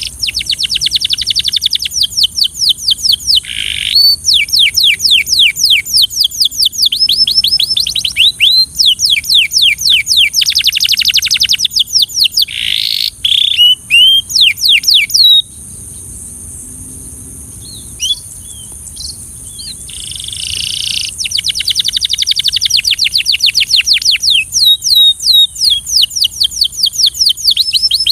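Belgian canary singing: fast rolling trills of quick falling notes, phrase after phrase, with a lull of a few scattered chirps about two-thirds of the way through before the trilling starts again. A steady high hiss runs underneath.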